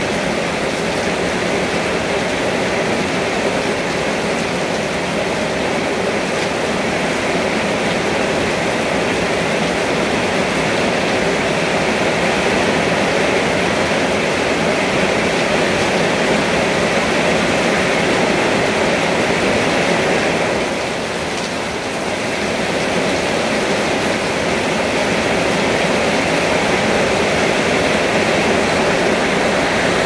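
Steady rain falling and splashing on a wet concrete yard and the leaves of potted plants. It eases briefly a little over two-thirds of the way through, then picks up again.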